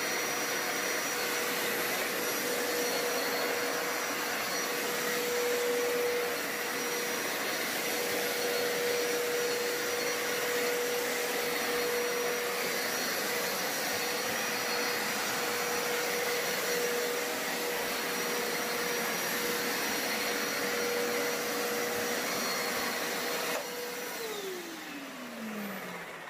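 Hoover Power Scrub Deluxe carpet cleaner running steadily with a constant whine. About 23 seconds in it is switched off, and the motor winds down with a falling pitch.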